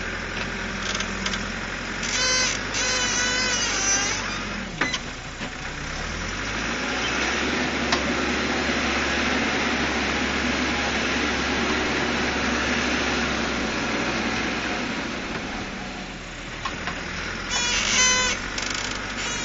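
Caterpillar 416C backhoe's Perkins turbo diesel running steadily. Its note shifts about five seconds in, and a louder, even rushing noise builds through the middle as the machine works, easing off near the end.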